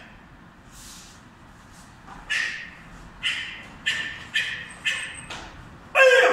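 Karate gi snapping crisply with each fast block and strike of the kata Tekki Sandan, about six sharp snaps. Near the end comes a loud kiai shout that falls in pitch.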